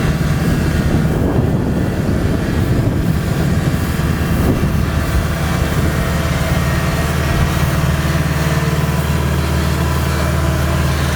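Kubota DC70 combine harvester's diesel engine running steadily, with a rougher, noisier stretch in the first few seconds.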